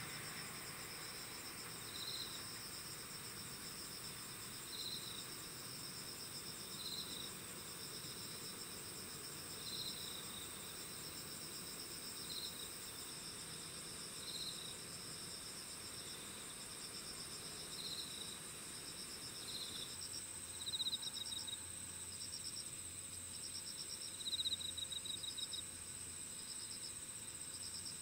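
A chorus of night insects calling: steady high-pitched buzzing trills, with one insect giving a short chirp every two to three seconds. Twice in the latter part a louder pulsed trill stands out.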